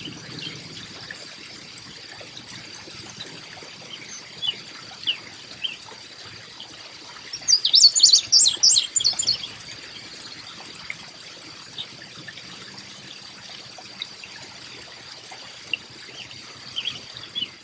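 Birds chirping with short scattered calls over a faint trickle of water and a steady high-pitched tone, with a quick burst of rapid high chirps about halfway through.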